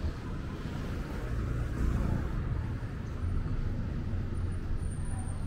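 Street traffic: the steady low rumble of passing vehicles' engines and tyres, swelling briefly about two seconds in.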